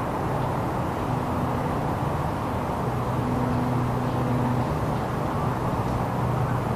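A motor running steadily, with a low drone under a rushing noise.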